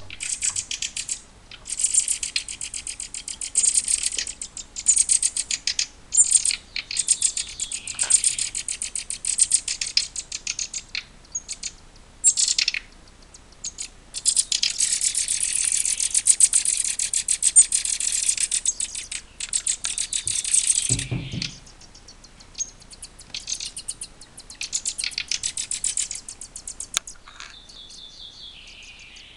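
Nestling songbirds begging with rapid, high-pitched chirping in bouts of one to several seconds, the longest lasting about six seconds in the middle. A brief low thump follows just after it.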